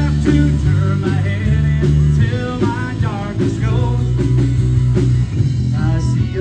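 Live rock band playing: a man singing lead over electric bass, drums with steady cymbal beats, electric guitar and keyboard.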